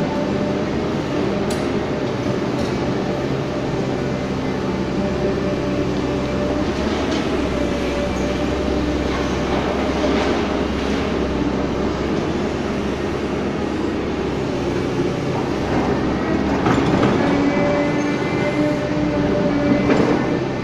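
Caterpillar 315D excavator's diesel engine running steadily under load in an enclosed hall, with the clatter of soil and stones falling into the steel tipper body about ten seconds in and scrapes and knocks of the bucket digging near the end.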